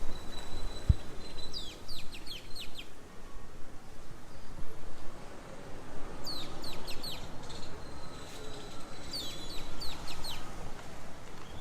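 Wild bird calls: three bouts of quick, high, downward-slurred notes, each lasting about a second, coming about two, six and nine seconds in, over a steady background hiss and a thin, steady high tone.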